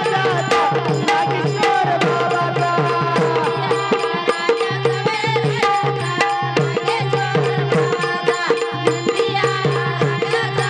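Bhajan music, apparently an instrumental stretch: rapid tabla-style hand-drum strokes with bright cymbal-like clicks over a sustained melody and a steady low drone.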